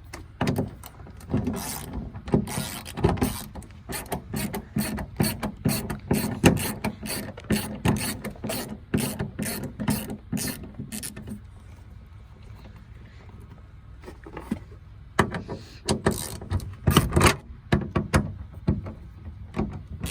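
Ratchet wrench with a 10 mm socket clicking in quick runs as it backs out the side mirror's mounting nuts, with a pause of a few seconds about halfway through.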